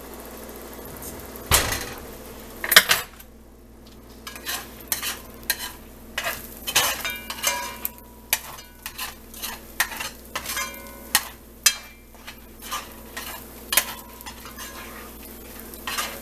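Eggs being scrambled in a metal pot: a metal cooking utensil scrapes and clinks against the pot again and again, some strokes leaving a brief metallic ring, over a light sizzle of the cooking eggs. Two louder knocks come about a second and a half and nearly three seconds in.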